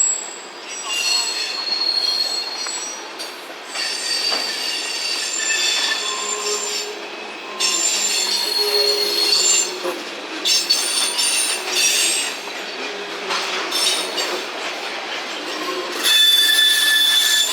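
Freight train rolling past, its wheels squealing against the rails: several high-pitched squeals start and stop, overlapping, over the steady rumble of the cars.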